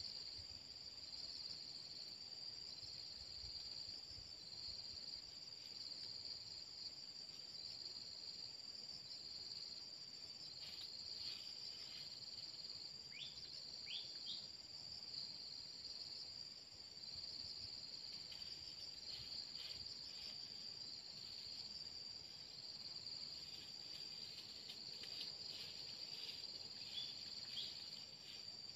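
Faint, steady insect chorus: a high pulsing buzz with a second, higher continuous tone above it. A couple of short falling chirps come about halfway through, and faint scattered clicks, such as leaf-litter rustles, come in the middle and near the end.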